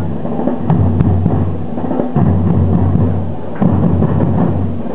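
A school marching band playing live: drums keeping a steady beat under a sustained low horn-like note, the low note breaking off briefly about two seconds in and again past three and a half seconds. The recording is rough and muddied.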